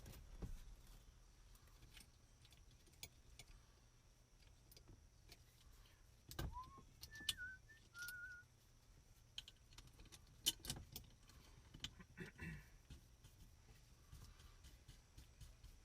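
Faint, scattered metallic clicks and clinks of tools and parts being handled, with a short high chirp that rises and then wavers about six and a half seconds in.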